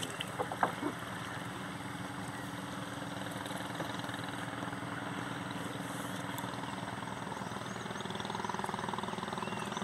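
Small boat motor running steadily at low speed, getting a little louder near the end. A few light knocks come in the first second.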